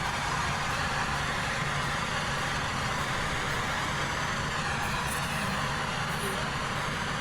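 Boeing 737 jet engines during landing: a steady, even rush of engine noise with a low hum beneath it, holding the same level throughout.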